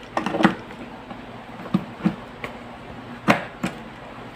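Sharp clicks and knocks from a USB flash drive being fitted into the side USB port of a desktop speaker while the speaker is handled. There is a quick cluster of clicks near the start, then four more single knocks spaced through the rest.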